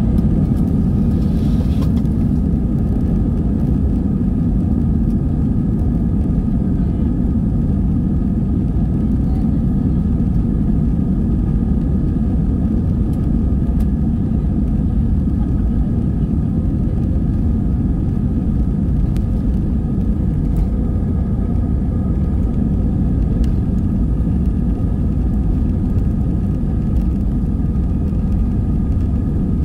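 Cabin noise in an Airbus A320-200 on its takeoff roll: the engines at takeoff thrust give a loud, steady rumble with a high steady hum of several tones over it, and the level holds even as the jet speeds down the runway.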